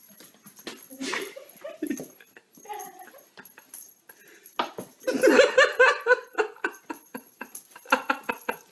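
A dog making short whining vocal sounds, then louder laughter breaking out about five seconds in.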